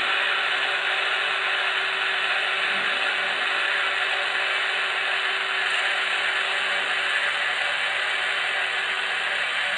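H0-scale model electric locomotive (Electrotren RENFE 269) running along the track, a steady mechanical whir of its motor and wheels on the rails.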